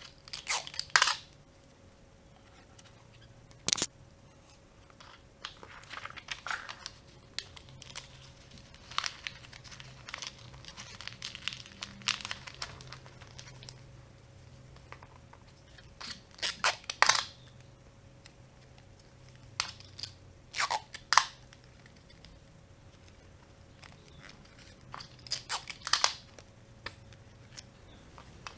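Clear sticky tape being pulled off a dispenser and torn, mixed with rolled paper tubes rustling and crinkling as they are handled and wrapped, in short sharp bursts with quiet handling between.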